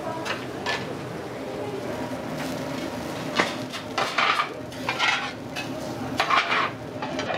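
Metal spatulas scraping and clinking on a teppan iron griddle, mixed with metal serving plates clattering. A sharp clank comes about three and a half seconds in, followed by several short runs of scraping and clinks.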